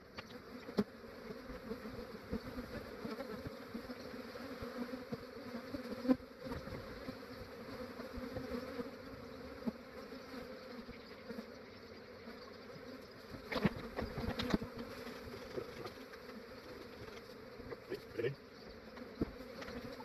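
A clustered swarm of honey bees buzzing in a steady, dense hum. A few sharp knocks cut through it, the loudest about six seconds in and two more a little after the middle.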